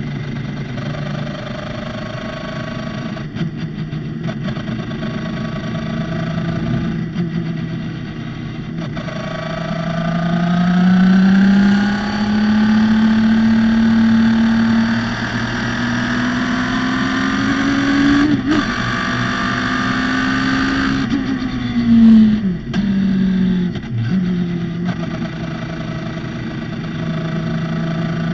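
Radical SR3 race car's motorcycle-derived four-cylinder engine at speed on track. Its note holds with brief lifts, then climbs in steps as it accelerates through the gears. About three-quarters of the way through the pitch drops away with quick blips on downshifts under braking, then it settles to a steadier note.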